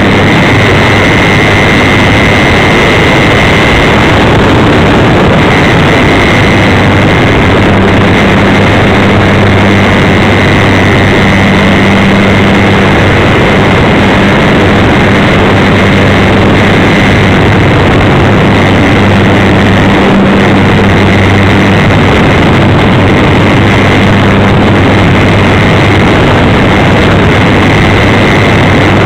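Electric motor and propeller of a GWS Slow Stick RC plane in flight, heard through its onboard FPV microphone: a steady hum with a high whine, over a dense hiss.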